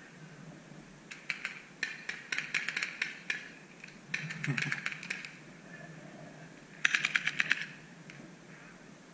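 Paintball markers firing in rapid bursts of sharp pops. A few scattered shots come first, then several quick volleys. The loudest and fastest is a burst of about ten shots, roughly twelve a second, about two-thirds of the way through.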